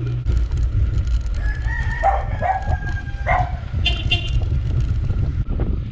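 Wind buffeting a bike-mounted action camera's microphone, with rattles and clicks from mountain bikes rolling over a rough dirt lane. A rooster crows about two seconds in, with a shorter high call about a second later.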